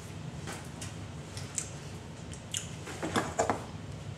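A few light knocks and clicks of things being handled and moved, the loudest cluster about three seconds in, over a low steady hum.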